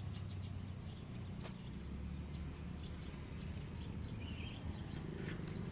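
Outdoor background: a low steady rumble with faint scattered bird chirps, and a single click about a second and a half in.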